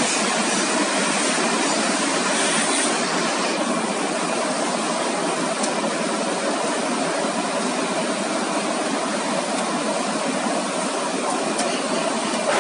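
Veneer glue spreader running, a steady even machine noise of its rollers turning, mixed with the general din of the plywood mill.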